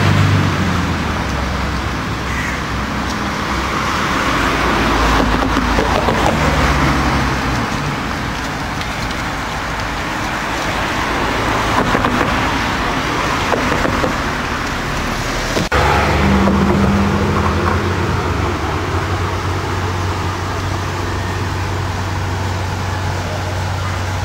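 Road traffic: cars passing one after another, each swelling and fading. About two-thirds of the way through the sound breaks off for an instant, and a steady low hum follows.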